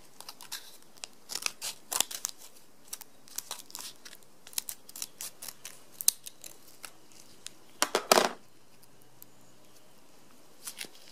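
A small foil sachet of Sugru mouldable glue being handled and opened: scattered crinkles and clicks, then a louder rip about eight seconds in as the packet tears open.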